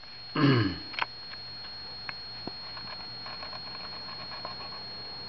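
A man's short voiced sound, falling in pitch, about half a second in, followed by a few light clicks of a handheld camera being moved. A steady high-pitched whine runs underneath.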